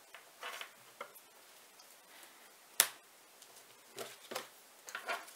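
Scattered handling noises on a tabletop: soft rustles and small clicks, with one sharp click about three seconds in.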